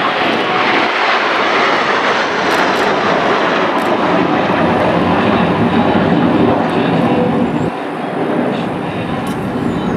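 Military jet aircraft in flight, its engine noise loud and steady with no distinct tone, easing slightly near the end.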